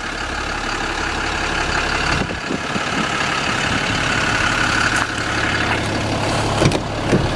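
Cummins turbo-diesel engine of a Dodge Ram pickup idling steadily, with a few short clicks near the end.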